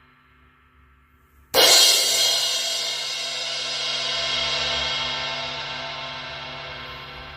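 16-inch Omete Mercury Crash cymbal struck once about a second and a half in, ringing out with a long, slowly fading wash. The faint tail of the previous strike dies away before the hit.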